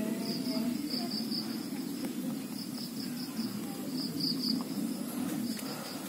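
Insects chirping in short groups of two to four quick high pulses, a group about every second, over a steady low background rumble.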